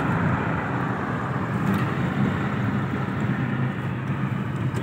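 A car driving, with a steady low rumble of engine and road noise heard from inside the cabin.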